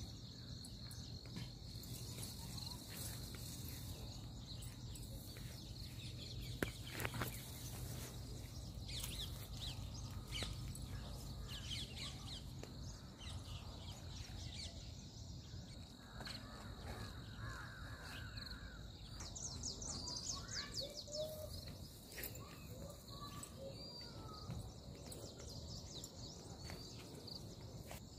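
Birds chirping and calling in open farmland, over a faint steady high-pitched whine, with a brief knock about seven seconds in.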